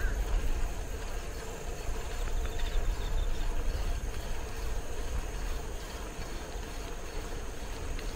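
Steady low rumble and road noise of a bicycle being ridden, with a few faint rattling ticks about halfway through.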